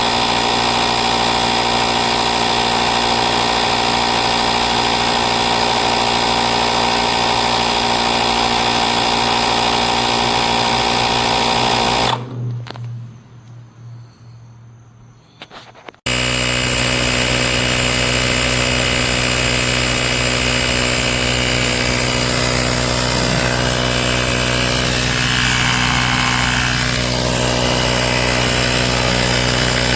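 Battery-powered portable air compressor (tyre inflator) running steadily with a buzzing motor-and-piston drone. It winds down about twelve seconds in, then starts again abruptly about four seconds later and keeps running.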